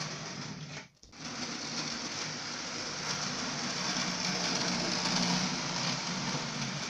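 Model train running on the track: a small electric motor whirring with the rattle of wheels on rail, growing louder as the train comes close. It breaks off briefly about a second in.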